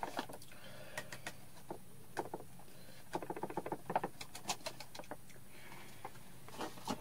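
Faint clicking and tapping of a utensil stirring pancake batter in a bowl, with a quick run of strokes about three seconds in.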